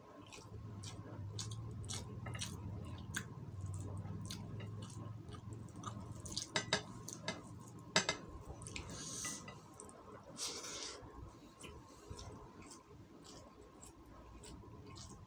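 Close-up eating sounds of chicken being eaten by hand: chewing and wet mouth clicks, with fingers working the food on china plates and a couple of sharper clicks around six to eight seconds in. A faint steady tone runs underneath.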